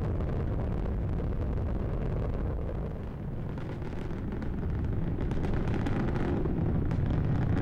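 Space Shuttle Discovery's solid rocket boosters and main engines in ascent: a steady, deep rocket rumble that dips slightly about three seconds in, then grows a little louder with crackling.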